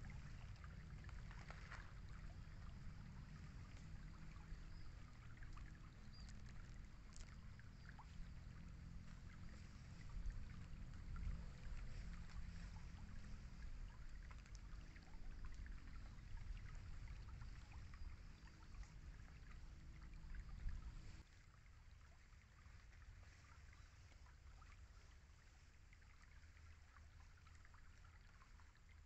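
Faint riverside ambience: light water trickling and dripping over a low rumble, which stops abruptly about two-thirds of the way through.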